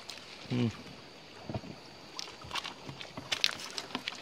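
A few sharp clacks of river pebbles knocking together as a large baung catfish is handled and shifted on a gravel bank, with a brief low voice sound about half a second in.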